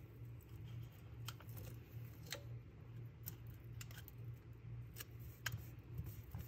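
Faint, scattered light clicks and taps of a correction tape roller and fingertips working paper stickers on a planner page, over a low steady hum.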